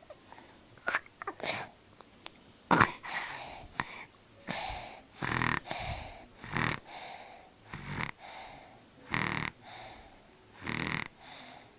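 Snoring: a loud breath comes about every second and a half, starting about four seconds in. A few sharp clicks come before it.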